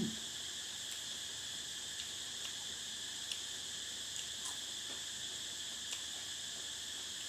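Cicadas singing in a steady, unbroken high-pitched drone, with a few faint ticks now and then.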